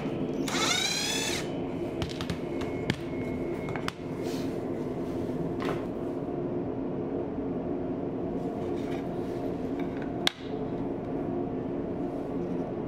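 Cordless impact driver driving a screw into a wooden box panel, its motor whine rising in pitch for about a second near the start. Scattered light clicks follow, with two sharp clicks, the louder one about ten seconds in, over a steady low hum.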